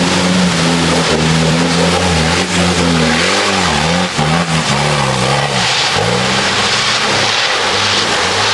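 Off-road vehicle's engine working hard while driving in mud: it holds a steady note for about three seconds, then revs up and down several times, then drops to a lower, unsteady note. A steady rush of noise sits under it throughout.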